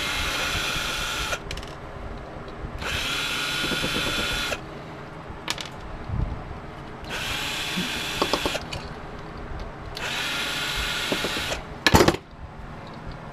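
Power drill run in four short bursts of a second or two each, driving screws out of a space heater's fan motor. Small clicks come between the bursts, and there is one sharp clack near the end.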